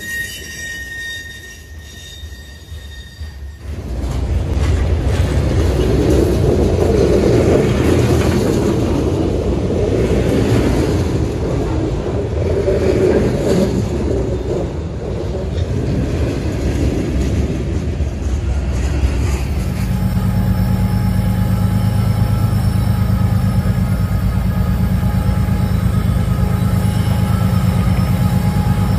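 CSX freight train's steel rock hopper cars rolling past close by: a high, steady wheel squeal at first, then a loud, even rumble of the cars going by. About two-thirds through, the sound switches to the steady drone of a pair of GE diesel road locomotives running under power.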